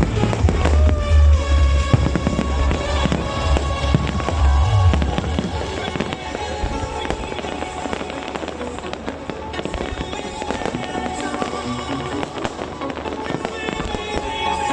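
Fireworks display: continuous bangs and crackling, with music playing over them. The low booming is heaviest for the first five seconds or so, then the bursts thin out and get quieter.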